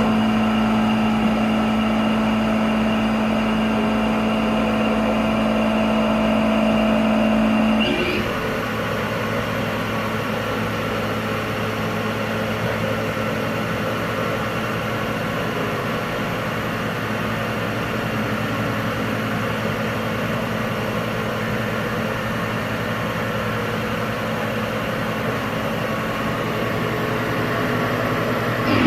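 Haas VF-5 CNC vertical machining center running, a steady mechanical hum and whine made of several tones. About eight seconds in the sound changes abruptly to a different, slightly quieter steady whine that holds for the rest of the time.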